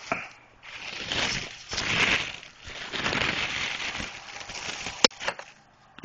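Plastic bag crinkling and rustling in irregular bursts as it is handled and pulled open around a microwaved magazine, with one sharp snap about five seconds in.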